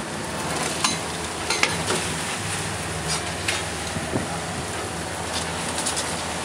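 Steady rushing noise of wind and churning wake water aboard a rescue boat under tow, with the boat's engine humming low underneath and a few short sharp knocks.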